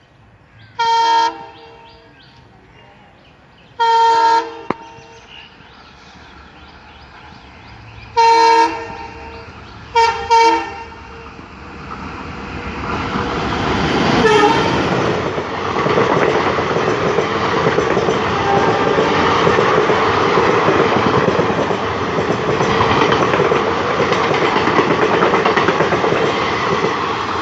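Indian Railways express locomotive horn sounding three blasts, then two quick short toots, as the train approaches. The rumble of the train then builds and the coaches rush past at speed with wheels clattering over the rails.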